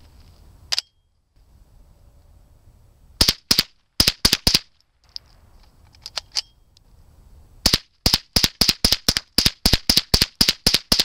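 GSG-522 SD suppressed .22 LR semi-automatic rifle firing: a single shot, then short groups of quick shots and a few weaker ones, ending in a rapid string of about four shots a second.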